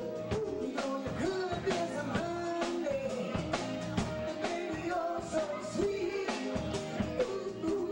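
Live band playing with several singers singing over a drum kit keeping a steady beat.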